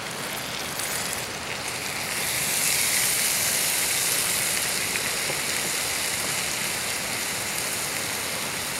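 Steak, onions and oil sizzling in a skillet on a canister camp stove as the steak is lifted out. The sizzle grows louder about two seconds in and then holds steady.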